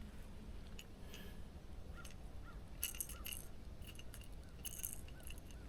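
Quiet handling of a fish and topwater popper lure: scattered light metallic clicks and clinks, like treble hooks rattling, with faint short chirps repeating about twice a second from about two seconds in.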